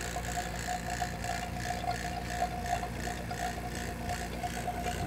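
HVAC vacuum pump running steadily, evacuating a newly installed mini-split system's line sets toward a deep vacuum under 500 microns. It holds a steady mid-pitched tone with a faint, even pulsing over a low hum.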